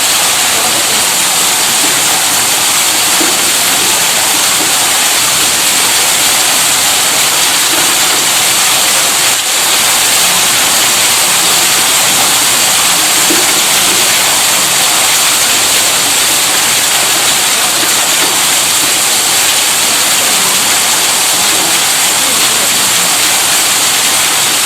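Steady rushing hiss of water from an electric tube-well pump, unbroken and even.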